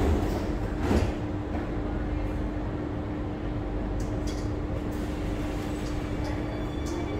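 Cabin noise of an SMRT C830C metro train: a steady low rumble, a sharp thud about a second in, then a steady hum.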